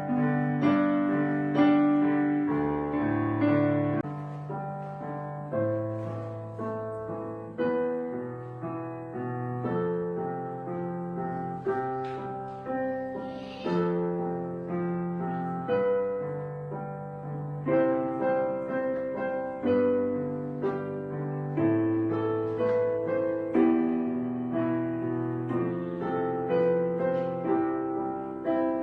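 Piano music: notes and chords struck one after another and left to ring and fade.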